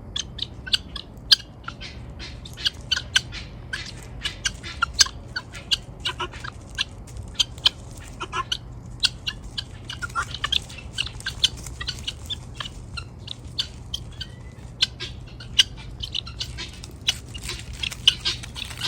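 Helmeted guinea fowl calling: many short, harsh, squawking calls in quick succession, often overlapping.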